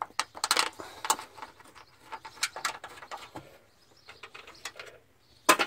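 A plastic radiator fan shroud being handled and fitted into place: a run of irregular clicks, knocks and rattles of plastic against metal, with one sharp, loud click near the end.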